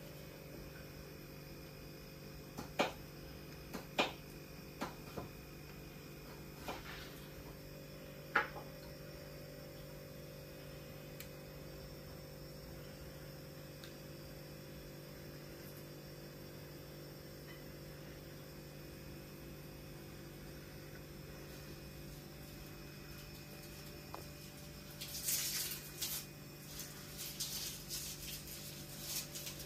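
Quiet room tone dominated by a steady low electrical hum, with a few faint clicks in the first several seconds and a short stretch of crackling rustles near the end.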